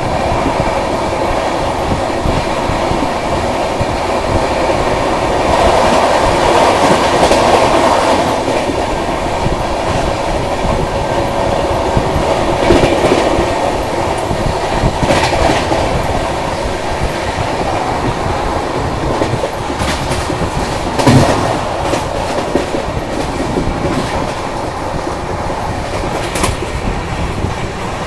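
Humsafar Express passenger train running at speed, heard through an open coach doorway: a steady rumble and rush of wheels on the rails, swelling for a couple of seconds early on. Sharp clacks over rail joints come now and then, the loudest a little after twenty seconds in.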